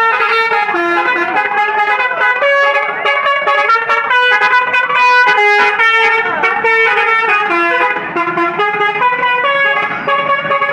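A tour bus's multi-tone 'telolet basuri' musical horn playing a fast melody, its notes stepping up and down with a few pitch glides between them.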